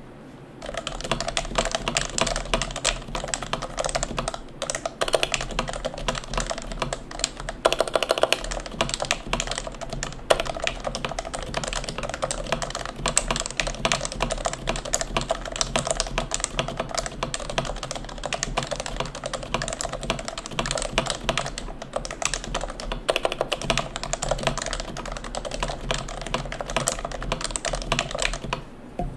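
Continuous fast typing on a custom keyboard with Realforce RF101u Topre internals: lubed, unsilenced housings and sliders on a brass plate, with RF101u keycaps and stabilizers, giving a dense run of keystrokes.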